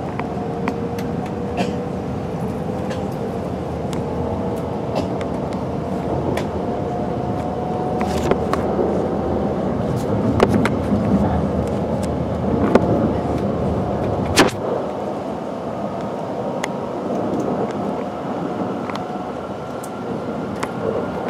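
Cabin noise inside an E5 series Shinkansen running on the line: a steady rumble under a faint whine that slowly rises in pitch as the train gathers speed, with scattered sharp clicks. About two thirds of the way through there is one loud click, and after it the deepest part of the rumble drops away.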